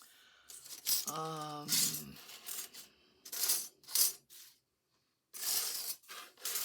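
Craft supplies being handled: paper rustling and small rattling clinks in several separate bursts, with a short hummed note about a second in.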